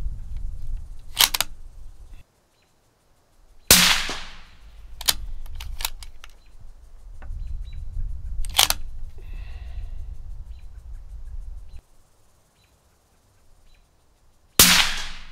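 Two suppressed .22-250 Remington rifle shots about eleven seconds apart, each a sudden crack with a short trailing echo. Between them come sharp metallic clicks of the bolt being worked to eject the spent case and chamber the next round, over a low rumble.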